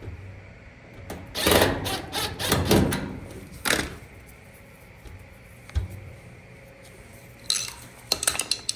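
Tool-and-metal handling noise as screws and parts are fitted back into a dryer: several rough bursts lasting up to a second in the first half, a single knock, then a quick run of clicks near the end.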